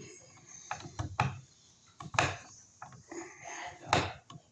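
Clicks and knocks as a wall receptacle is pressed into its electrical box and a mounting screw is worked, with three sharper knocks among smaller clicks and a short scraping rustle before the last knock.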